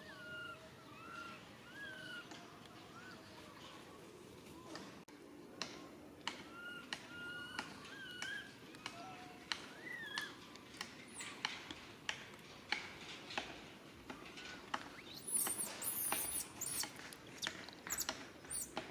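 Baby monkey crying for its mother: short wavy chirping calls, then a string of sharp clicks and very high, shrill squeals that are loudest near the end.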